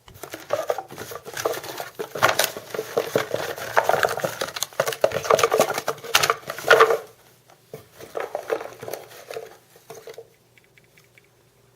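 A deck of cards being shuffled by hand: a quick, dense run of soft flicks and slaps for about seven seconds, then looser handling that stops about ten seconds in.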